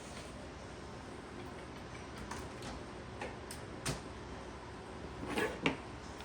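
Scattered small clicks and taps of laptop parts and cables being handled during reassembly, over a steady background hiss, with a louder cluster of clicks near the end.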